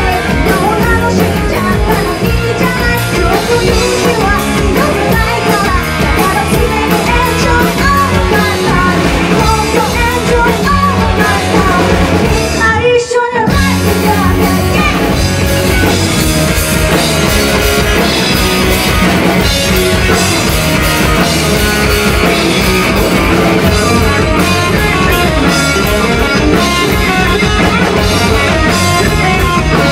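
Live rock band playing: a woman singing over electric guitars, bass and a drum kit. The band's sound drops out for a split second near the middle, then comes back in full.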